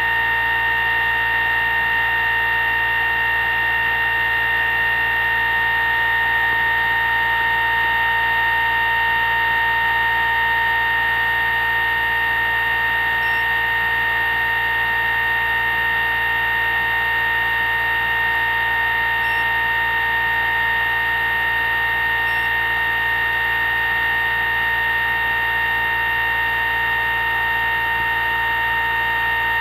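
Homemade pulse motor running on 12 volts, its rotor spinning and drive coils pulsing to give a steady high-pitched whine of several pitches at once.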